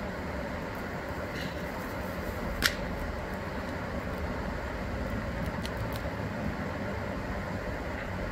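Steady low outdoor background rumble with one sharp click about two and a half seconds in and a couple of faint ticks later.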